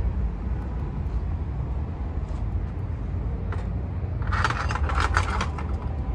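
Metal gate with chain-link mesh rattling and clanking for about a second as it is pushed open by hand, after a couple of faint clicks.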